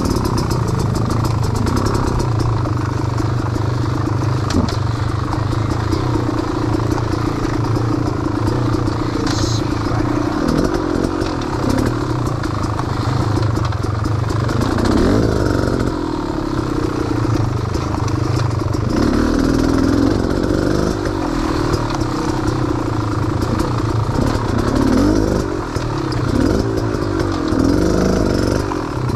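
A small vehicle engine running at low speed off-road, its revs rising and falling again and again as it works over rough, rutted ground, with some rattling.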